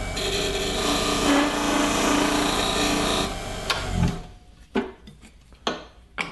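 Parting tool cutting into an olive wood blank spinning on a wood lathe: a steady scraping hiss with a faint ringing tone, which stops about three seconds in as the lid parts off. A few light knocks follow as the freed lid is handled.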